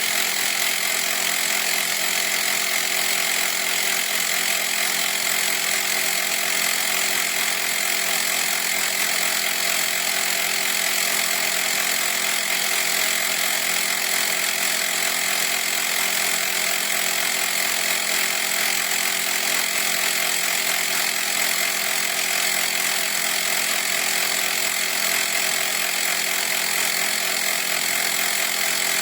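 CYCPLUS portable electric mini compressor (tyre inflator) running continuously, a steady mechanical drone whose pitch and level stay even throughout.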